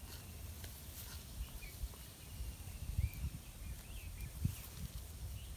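Outdoor ambience: a low rumble of wind on the microphone with faint, short bird chirps, and two soft thumps, about three and four and a half seconds in.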